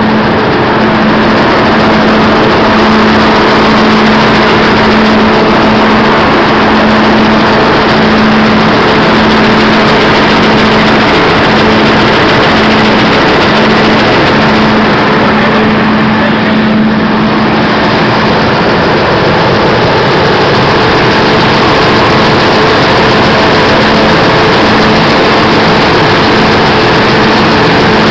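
5XZ-6 gravity separator running while it sorts palm kernels from palm shells on its deck: a loud, steady mechanical noise with a constant hum.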